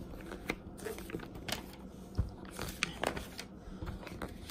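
Glossy pages of a store sales circular being turned and handled: paper rustling with several short, sharp crackles.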